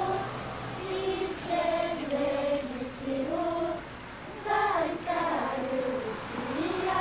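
A Lucia procession of children singing together, one slow melody line.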